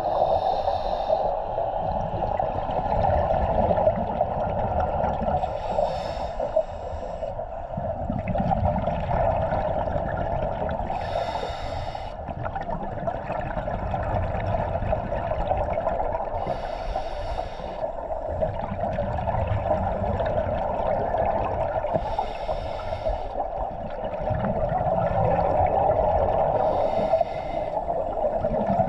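Scuba diver breathing through a regulator underwater: a burst of exhaled bubbles about every five seconds, six in all, over a steady underwater rush, heard through an underwater camera housing.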